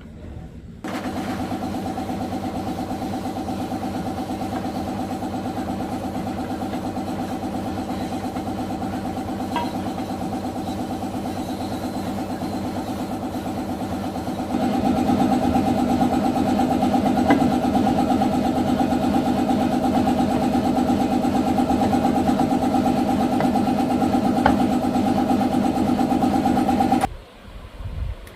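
Yamaha Exciter 125's single-cylinder four-stroke engine starting abruptly and running at a steady speed, getting louder about halfway through, then switched off suddenly near the end.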